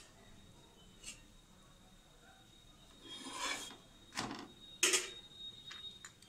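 A paratha being lifted and turned over on a non-stick frying pan. There is a brief scraping rub a little after three seconds, then two sharp knocks about half a second apart, the second the loudest, with a few light ticks near the end.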